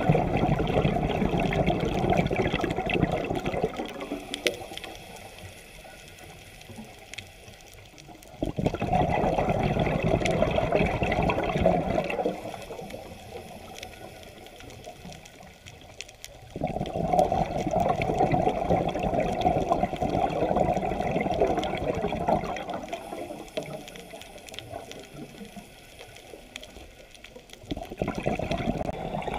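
Scuba diver breathing through a regulator, heard underwater: gushing bursts of exhaled bubbles lasting a few seconds each, about every eight seconds, with quieter stretches between breaths. Three full exhalations, and a fourth starting near the end.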